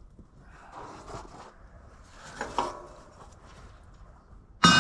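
Scraping and rubbing of hand tools against tractor engine parts, twice, then a loud metal clang that rings on briefly near the end.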